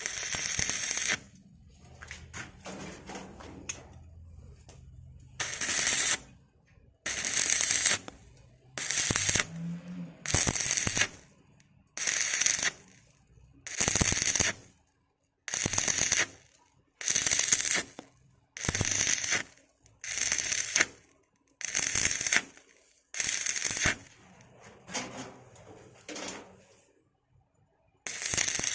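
Electric welding arc crackling on galvanized steel pipe at about 80 amps, in repeated bursts of about a second each with short pauses between.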